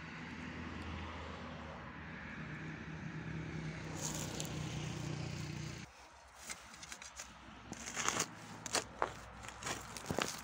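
A steady engine hum runs for the first half and stops about six seconds in. After that, a hoe blade chops and scrapes into stony soil around raspberry canes, about five sharp strikes in the last few seconds.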